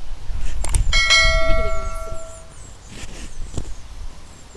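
A couple of light knocks, then an object struck once about a second in, ringing with a clear bell-like tone that fades away over about a second and a half.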